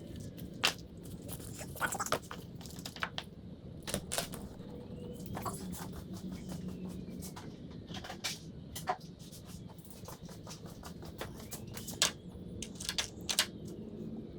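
Hand work on a car wiring harness: scattered sharp clicks and scraping, rustling handling noises of tools and wires, irregular rather than rhythmic.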